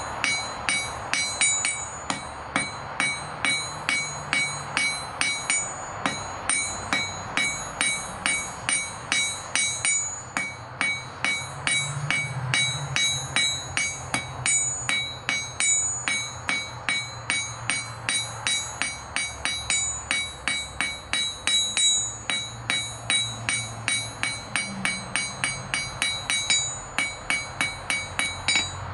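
Ball-peen hammer striking a hot 5/16-inch steel rod on an anvil in a steady run of about three blows a second, each blow leaving a bright metallic ring from the anvil, with a short break about six seconds in. The rod's tip is being squared off and drawn out to a point.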